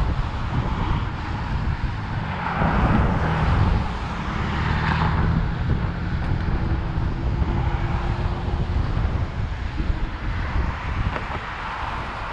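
Riding noise from an electric scooter moving along a roadside: a steady rumble of wheels on pavement with wind on the microphone, and passing traffic that swells louder about two seconds in.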